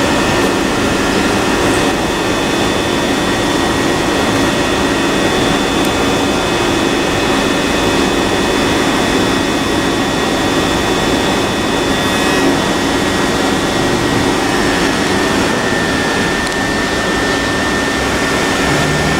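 Southeastern Class 375 Electrostar electric multiple unit standing at the platform, its onboard equipment giving a steady hum and rush of air with a few high held tones.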